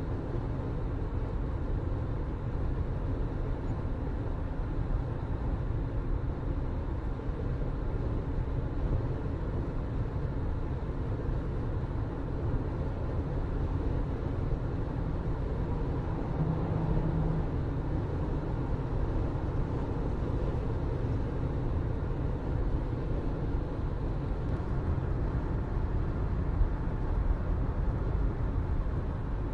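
Steady low rumble of a vehicle in motion, running on without a break, with a brief low hum about halfway through.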